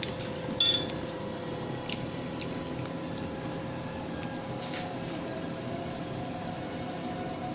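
A stainless steel pot lid clinks once against the pot about half a second in and rings briefly. After that a steady hum with a faint high tone and a few light ticks carries on as the covered pot cooks on the stove.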